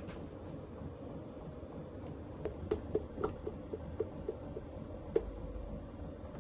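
A run of light clicks, about four a second for nearly three seconds, over a steady background hum.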